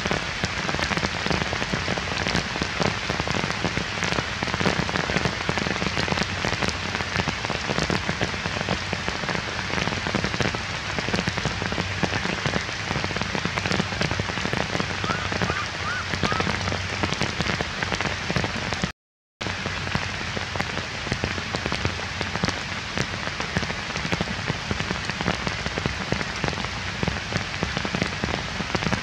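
Heavy rain falling steadily on wet ground, a dense patter of drops. The sound cuts out for a split second about two-thirds of the way through.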